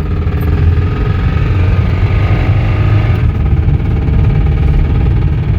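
Toyota Corolla four-cylinder engine running loud under full throttle with a rapid, steady rod knock: the sign of a spun rod bearing in a failing engine.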